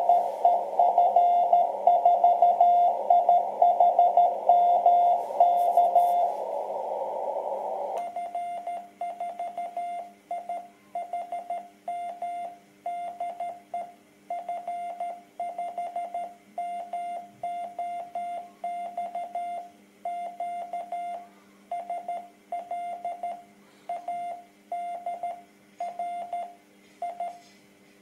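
Morse code (CW) as a keyed tone of about 700 Hz from a QRP shortwave transceiver on 10.105 MHz. For the first six seconds the other station's signal is received over band hiss. After a short stretch of hiss alone, the set's own clean sidetone keys Morse while it transmits, with the noise gone.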